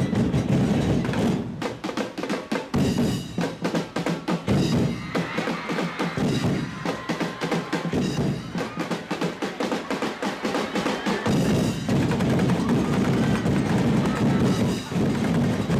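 Drum-led percussion ensemble playing a fast beat for a festival street dance. In the middle the deep drums thin out, leaving rapid sharp strikes, and the full heavy beat returns about eleven seconds in.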